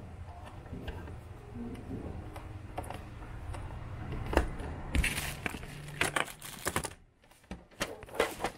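Small clicks of a screw being driven into an Epson L120 printer's plastic housing, then sharp plastic knocks and clattering, rustling handling noise in the second half as the printer is turned over.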